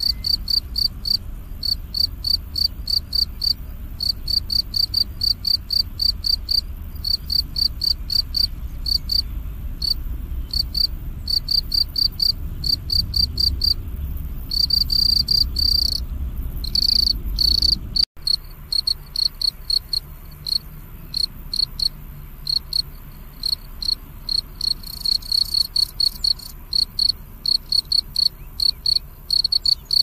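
European field cricket calling: a steady run of high, shrill chirps, about three a second, with a few short breaks and a couple of longer unbroken trills about halfway through. A low rumble sits under the first half, and the sound cuts out for an instant a little past the middle.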